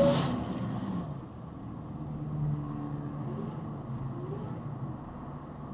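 Pickup truck engine accelerating, heard from inside the cab. It is loudest right at the start, at the top of a rising rev, then drops back as it shifts up and settles to a steadier hum that rises a little again as speed builds.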